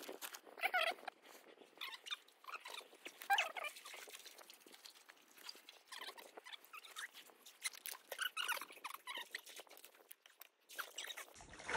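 Faint rustling, scraping and crisp clicking of a hiking backpack being handled and hung on a dead log, its straps and fabric worked by hand.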